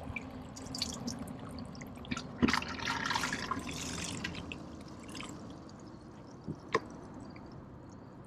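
Water dripping and splashing in irregular bursts, busiest a couple of seconds in, with a sharp tap near the end.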